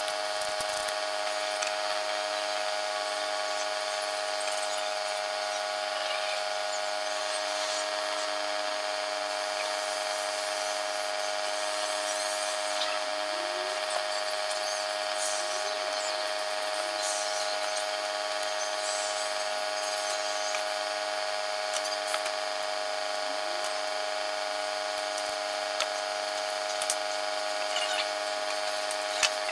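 A steady machine hum made of many fixed tones runs throughout. Now and then come faint clicks and scrapes of small hand tools and metal printhead parts being handled.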